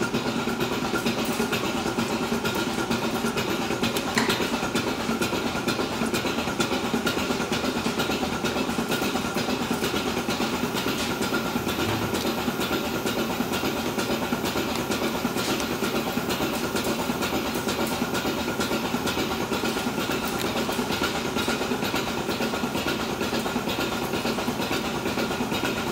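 Milking-parlour machinery running steadily: a constant mechanical hum with a thin high tone in it, the sound of the milking system's vacuum equipment.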